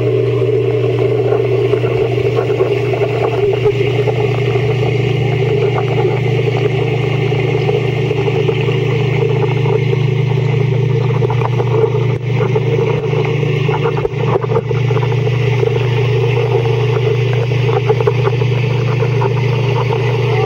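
Steady low hum mixed with a rushing noise, heard through a camera held under water in a pond, dipping briefly twice past the middle.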